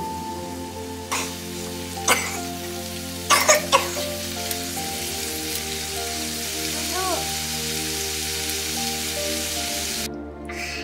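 Cucumber and red chili strips sizzling in a non-stick frying pan, with a few knocks and scrapes of a spatula against the pan about one, two and three and a half seconds in. Background music plays underneath, and the sizzling stops just before the end.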